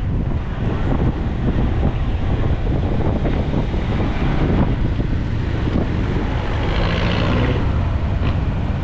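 Steady low rumble of wind and road noise from a moving motorbike in city traffic, with a brief rise in hiss about seven seconds in.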